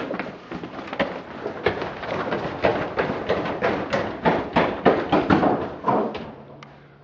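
Running footsteps on a hard corridor floor: quick, irregular strokes several times a second that fade away about six seconds in.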